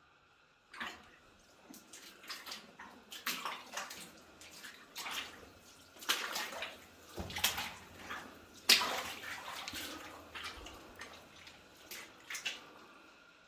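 Footsteps wading through shallow water and mud in a flooded mine tunnel: about a dozen irregular splashes and sloshes, the loudest about nine seconds in.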